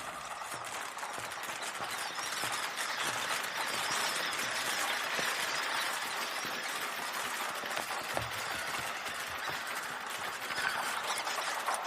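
Film sound effect of many squirrels at work on nuts: a dense, steady clatter of small clicks and taps.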